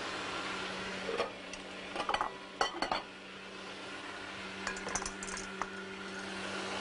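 Electric blender running steadily, puréeing green chard. Several sharp clinks of dishes or utensils sound over it about a second in, between two and three seconds, and around five seconds.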